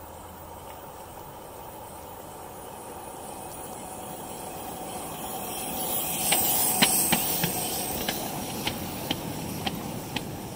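Live-steam model of SR&RL locomotive No. 24 passing close at rail level: steam hiss and running noise build to a peak as the locomotive goes by about six seconds in. After that comes a series of sharp clicks, roughly two a second, as the wagons' wheels roll over the rail joints.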